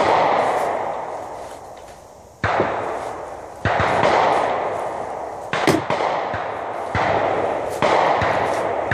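Gunshots from a 10.5-inch 5.56 rifle: about seven shots at uneven intervals, two of them in quick succession about halfway through. Each shot trails off in a long echo lasting a second or more.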